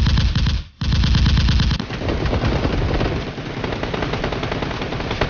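Rapid automatic gunfire, a machine-gun sound effect: one burst stops just after the start, and after a brief gap a second, longer burst runs on, turning rougher about two seconds in and cutting off abruptly at the end.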